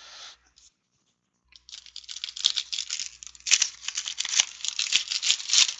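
A foil trading-card pack wrapper being torn open and crinkled, a dense crackling full of small snaps that starts about a second and a half in.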